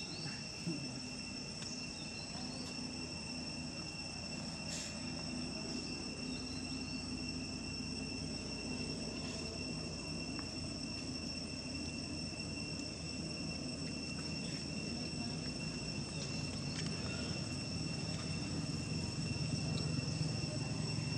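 Steady insect chorus, a constant high-pitched buzzing drone. A low rumble underneath grows louder near the end, and there is a single click about five seconds in.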